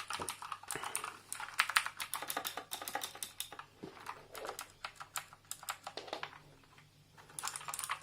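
Typing on a Redragon Varuna mechanical keyboard: rapid, irregular clacking of key presses. It stops briefly about six and a half seconds in, then resumes just before the end.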